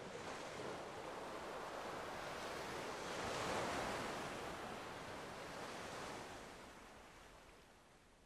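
A soft, even rushing noise that swells to its loudest about three and a half seconds in, then fades out.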